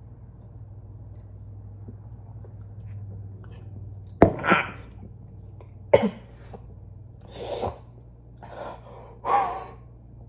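A person coughing and gasping after swallowing undiluted Kool-Aid concentrate, reacting to how strong it is. A low room hum runs for about four seconds, then come two sharp coughs followed by several breathy gasps.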